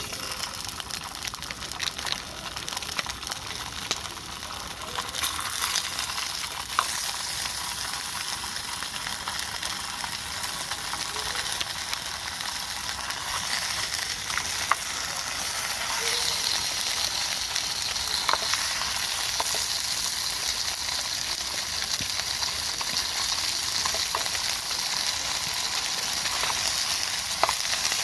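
Gyoza frying in a hot pan: a steady oily sizzle that starts suddenly and grows louder about five seconds in and again about sixteen seconds in, with a few light clicks.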